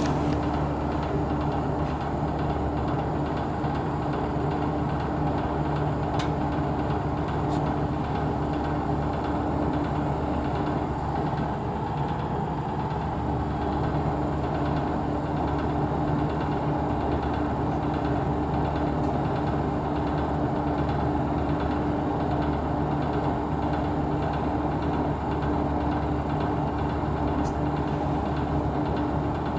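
Corona kerosene fan heater running, its blower giving a steady hum and rush with a few faint clicks. The owner reports an abnormal 'koron-koron' rattling from this heater.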